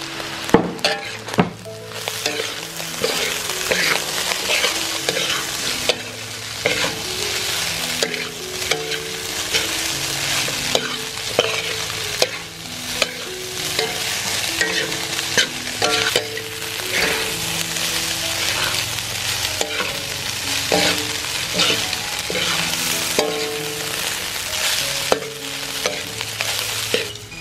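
Fried rice sizzling in a large metal wok while a metal spatula stirs and turns it, scraping and clacking against the wok many times over the steady hiss of the frying.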